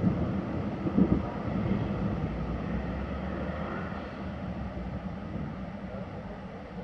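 Storm wind gusting against the microphone over a low rumble, with a strong gust at the start and another about a second in, then slowly fading over several seconds.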